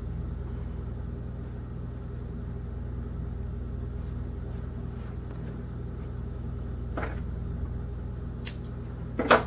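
Steady low hum of room tone, with faint sharp snips of small scissors cutting yarn about eight and a half seconds in, and a brief vocal sound just before the end.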